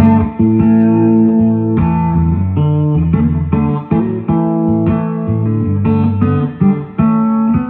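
Matco Tools-branded electric guitar played through a small combo amp: a run of picked single notes over held lower notes and chords, the notes changing every fraction of a second.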